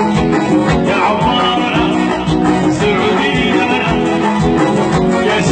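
Folk dance music: a plucked string instrument over a steady drum beat.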